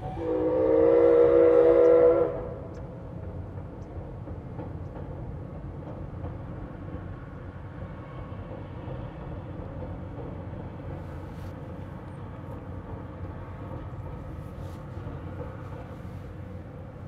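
A C11 steam locomotive's whistle sounds one chord-like blast of about two seconds, then the train's steady low running noise continues as it crosses the river bridge.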